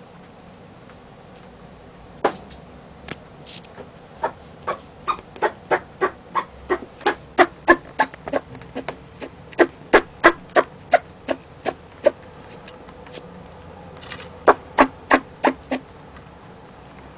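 Pet rabbit making a run of short, sharp sounds, about three a second, that stops after about ten seconds; after a pause there is a short burst of five more near the end.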